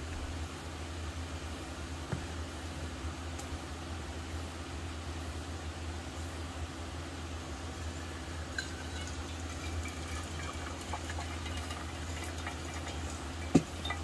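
Hot water poured from a kettle into a drip coffee bag on a mug, trickling and splashing from a little past halfway, over a steady low hum. Near the end the kettle is set down with a sharp knock.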